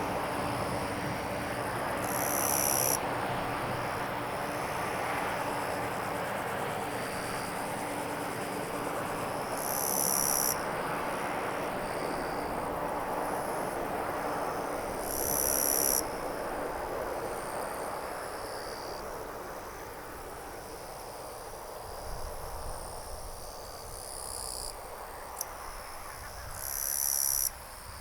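Insects calling outdoors: loud high buzzing bursts of about a second each, four times, over softer high chirping. Under them, a broad rushing noise fades away over the first two-thirds.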